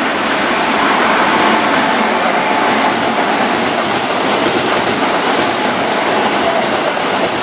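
Keihan 7200-series electric commuter train passing close by at speed: a steady, loud rush of wheels on rails and running gear.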